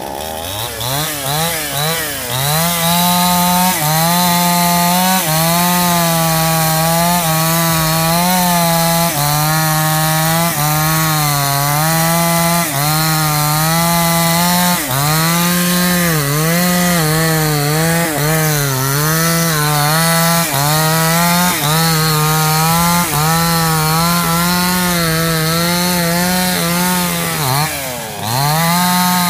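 Petrol two-stroke chainsaw revving up over the first couple of seconds, then held at high revs while cutting wood, its pitch dipping briefly and recovering about once a second as the chain bites into the cut, with one deeper dip near the end.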